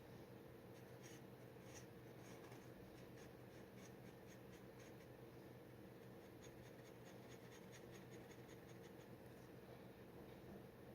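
Faint scratching of a G nib dip pen drawing on paper: many short, quick scratchy strokes over a low steady hum.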